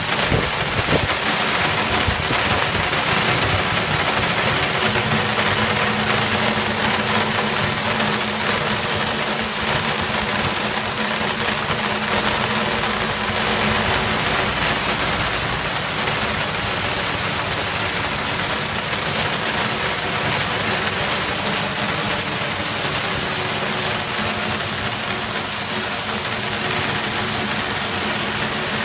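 Hail falling steadily, small hailstones hitting stone paving in a dense, even hiss.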